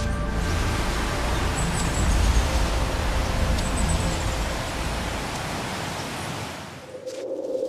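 A steady wash of hiss over a low rumble, a sound-design noise bed that fades out near the end. Just before the end a single steady low hum begins.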